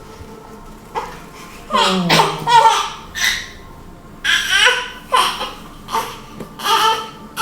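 Baby vocalising in a string of short, high-pitched bursts, starting about a second in.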